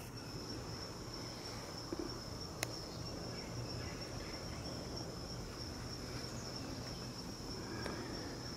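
Steady, high-pitched insect trill, unbroken throughout, over a faint low rumble, with one sharp click about two and a half seconds in.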